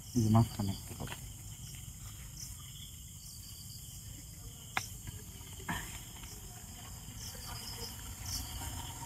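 Crickets chirping in short, repeated high trills, with a brief low voice about half a second in and a couple of sharp clicks around five and six seconds in.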